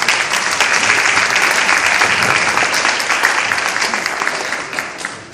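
Audience applauding: dense clapping that tapers off near the end.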